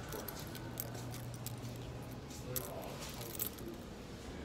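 Handling noise from a handheld phone on the move: scattered light clicks and jingles over a low steady hum that fades about halfway through.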